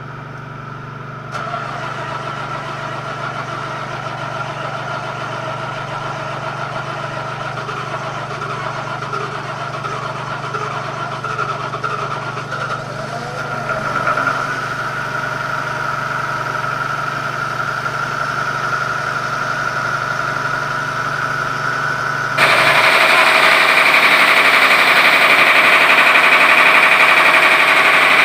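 Mitsubishi 6D15 inline-six diesel engine running steadily at idle. About 22 seconds in, the sound jumps abruptly louder and brighter.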